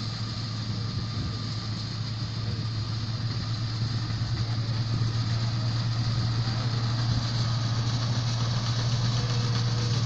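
John Deere 955 combine harvester running steadily while harvesting wheat, a low engine hum over the machinery noise, slowly growing louder as it comes closer.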